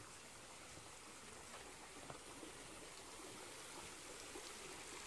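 Faint steady rush of a shallow stream flowing, with a few light ticks.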